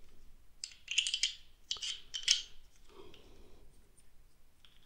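Hard plastic GoPro mount parts clicking, rattling and scraping as a mounting arm is fitted onto the suction cup mount by hand, with two bursts of sharp clatter about one and two seconds in, then fainter handling.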